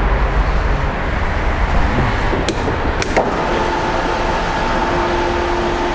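Two-post vehicle lift running to lower a car: a steady mechanical noise, two sharp clicks about two and a half and three seconds in, then a steady hum from about three and a half seconds on.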